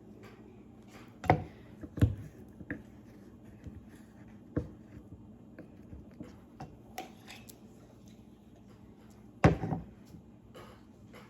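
A utensil scraping thick raw honey out of a container, heard as irregular light clicks and knocks against its sides, with a few louder knocks and the loudest near the end.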